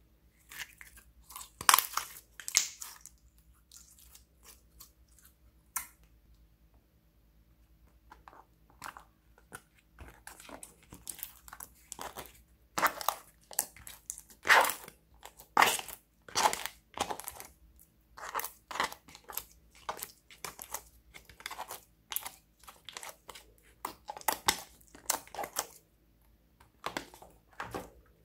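Clear slime being squeezed, pulled and pressed by hand, giving irregular bursts of sticky popping and crackling with a few quieter seconds between clusters.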